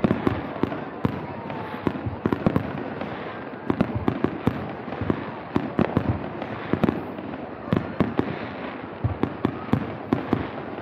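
Aerial fireworks display: a rapid, irregular barrage of sharp bangs and pops from bursting shells.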